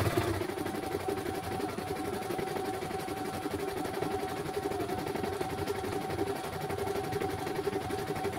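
CNY E900 computerised embroidery machine stitching a design: a fast, even needle clatter over a steady motor whine, with the footage sped up twofold.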